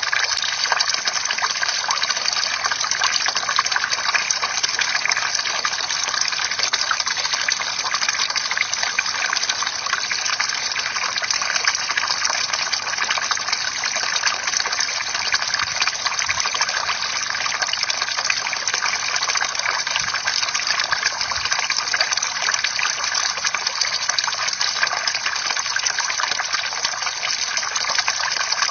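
Water pouring steadily from a bamboo fountain spout and splashing into the pool below, a continuous dense patter of droplets with no break.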